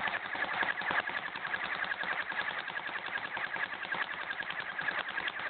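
Airsoft AK-47 replica firing full-auto: one long unbroken burst of rapid clicking shots over a steady mechanical whine.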